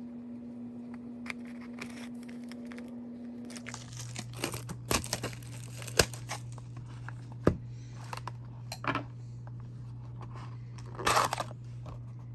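Packaging of a box of hockey cards being torn and crinkled open, in short bursts with a few sharp clicks, starting about four seconds in over a faint steady hum.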